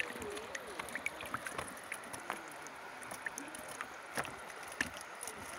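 Water splashing and dripping around a clear plastic fish trap as it is lifted out of a shallow river, with many small, irregular splashes and drips over a steady wash of water.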